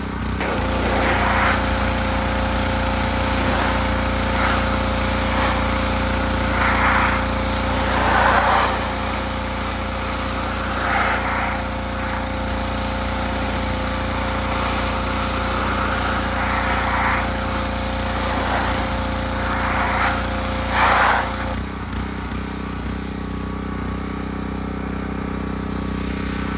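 A motor runs steadily, with short louder bursts of noise every few seconds, during a diesel particulate filter cleaning job; a steady higher tone in its sound drops out about three-quarters of the way through.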